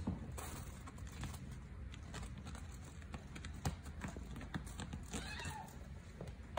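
Irregular light taps, knocks and rustles of kittens pawing and batting at plastic cat toys and scampering on a hard floor.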